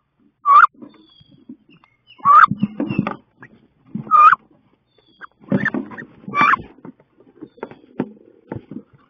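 Two female wood ducks fighting inside a wooden nest box: five loud, short calls come about one to two seconds apart, over scuffling and knocks of the birds against the box walls.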